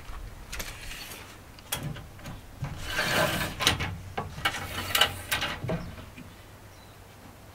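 Steel tape measure being pulled out and laid along a wooden board, its blade rasping and clicking over the wood. A few sharp knocks come from handling on the wooden deck.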